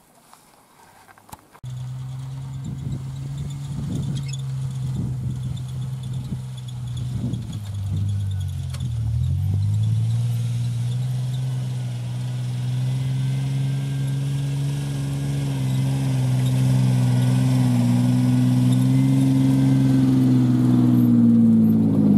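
Pickup truck engine running steadily under load, coming in after a second or two of quiet; its pitch dips and shifts about eight seconds in and rises slightly before falling near the end.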